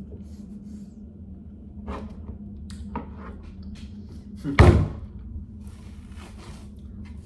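Watermelon being handled and cut at a table: a few light knocks, then one loud thump about halfway through as a heavy piece of watermelon is set down, followed by the soft scrape of a knife cutting into the melon.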